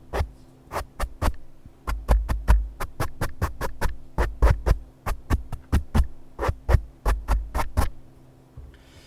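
A quick, fairly even series of close-miked taps or clicks, about three or four a second, many with a heavy low thump, over a faint steady low hum.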